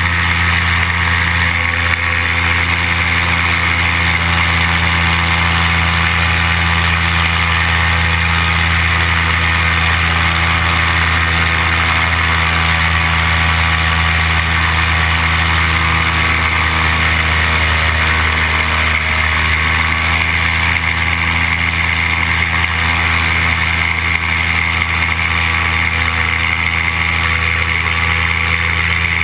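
Paramotor engine and propeller running steadily in flight, heard close up from the pilot's own rig: a constant drone with a slight shift in pitch about two-thirds of the way through.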